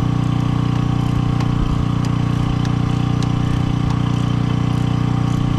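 A steady, unchanging low drone from an engine-like machine running nearby, with a few faint metallic clicks of hand tools over it.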